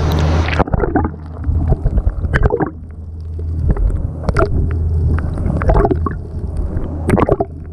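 Fishing boat's engine idling with a steady low hum, under scattered knocks and clatter on deck and water sloshing against the hull. A rush of wind on the microphone cuts off about half a second in.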